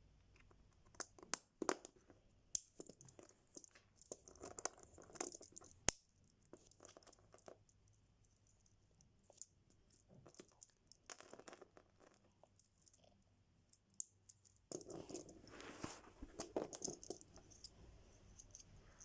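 Crinkling plastic and small sharp clicks of Lego pieces being handled, in irregular bursts.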